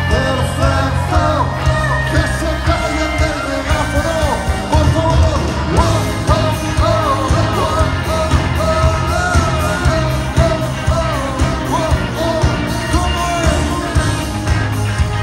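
Live rock band playing through a PA: singing over electric guitars, bass and a steady drum beat.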